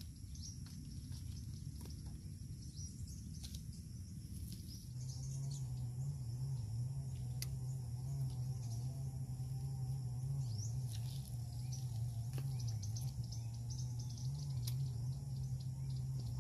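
Crickets and other insects buzzing steadily, with scattered short bird chirps. About five seconds in, a low steady hum that wavers slightly in pitch comes in and becomes the loudest sound.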